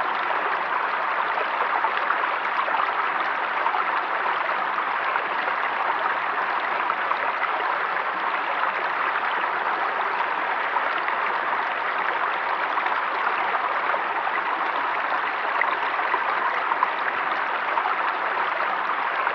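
Flowing river water rushing and babbling steadily, an even wash of sound with no change.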